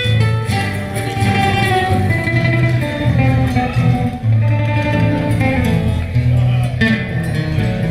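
Instrumental break in a Spanish-language ballad: guitar playing with a steady bass line between sung verses.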